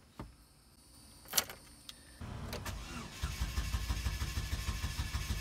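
Chevy Cobalt being cranked on the starter after a click, with a fast, even chugging that begins about three seconds in. The engine does not catch, because the newly replaced fuel pump and lines are still full of air and have to prime.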